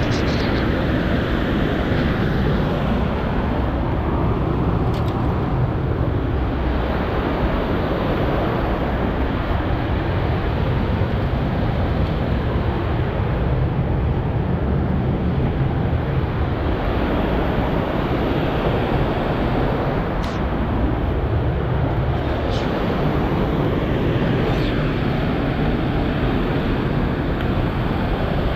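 Steady, loud rush of river water pouring over a lock-and-dam, with a couple of faint ticks about two-thirds of the way through.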